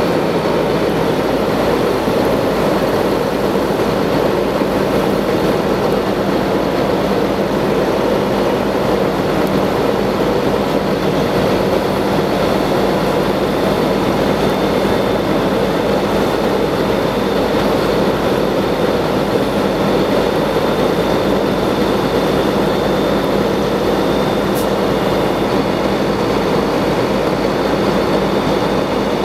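A fire engine's engine and pump running steadily to supply the hose line: a loud, even drone with a hiss over it that holds unchanged throughout.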